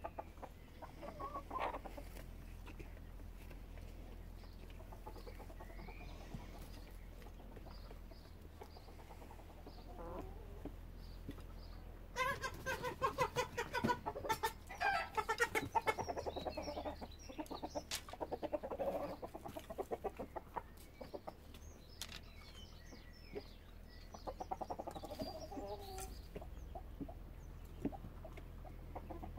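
Chickens clucking: soft scattered clucks, then a louder run of rapid, quickly repeated clucks near the middle, with more clucking bursts toward the end.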